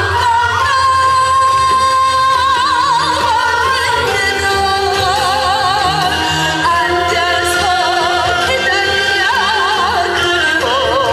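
A woman singing a Korean folk-style song into a microphone over instrumental accompaniment, holding long notes with a wide vibrato.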